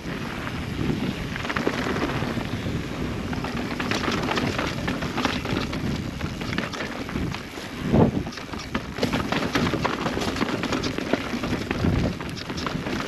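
Transition Spire mountain bike riding a dirt trail: tyres rolling over rough ground with frequent clatter and knocks from the bike over bumps, under wind on a helmet-mounted GoPro microphone. Two heavier thumps about eight and twelve seconds in.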